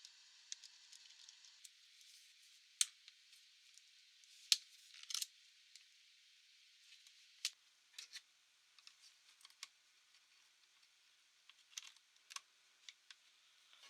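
Faint, scattered small clicks and taps, as from handling the plastic and metal parts of a laptop during a memory upgrade. The sharpest clicks come about 3 and 4.5 seconds in, with a quick run of taps just after.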